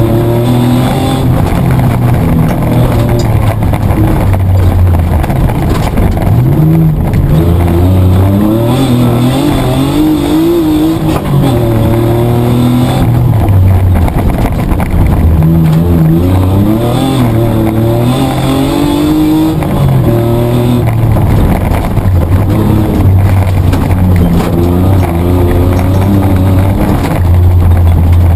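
Petrol Mitsubishi Triton 4WD engine heard from inside the cabin while racing offroad, its note climbing and dropping repeatedly as the driver accelerates and backs off, over constant rumble and road noise.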